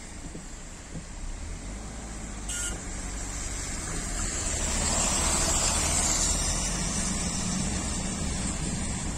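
Road traffic on a wet road: engine rumble and tyre hiss, swelling about halfway through as a vehicle goes by.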